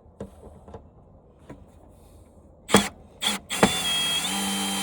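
Power drill triggered in two short bursts, then run steadily, its motor pitch stepping up and back down. A few faint handling clicks come before it.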